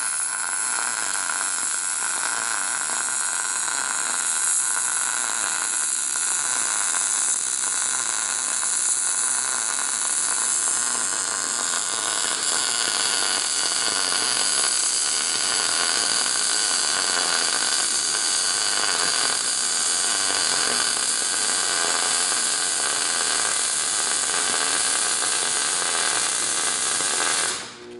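MIG welding arc burning steadily while a vertical-down stack-of-dimes bead is laid on steel: a continuous even hiss that cuts off near the end.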